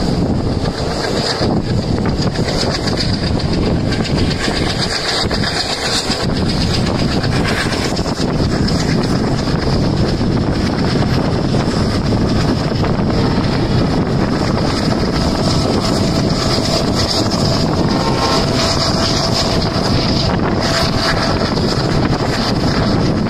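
Train running along the line, a steady loud rush of wheel and rail noise with wind buffeting the microphone.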